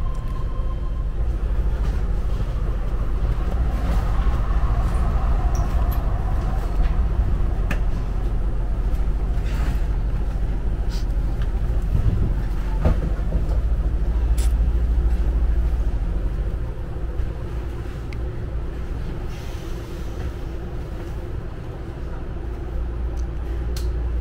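BART Legacy Fleet train car running, heard from inside the cabin: a steady low rumble of the wheels on the track with scattered sharp clicks and knocks. The rumble eases somewhat about two-thirds of the way through.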